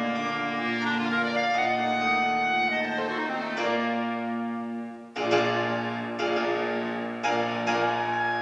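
Grand piano playing a slow, sustained chordal passage, the orchestra's part of a clarinet concerto's slow movement in piano reduction. A strong new chord is struck about five seconds in, followed by a few more, while the clarinet rests.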